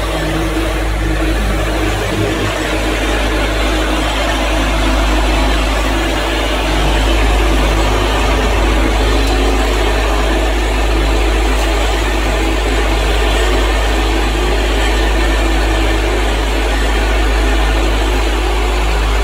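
Vibratory bowl feeder running with a steady low hum, while a dense, even rattle comes from the small clear plastic breathing-filter parts shaking along its stainless steel spiral track.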